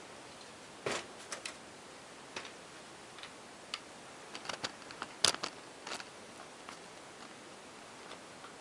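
Scattered light clicks and taps from the parts of a TV being taken apart by hand, irregular, with the sharpest click about five seconds in.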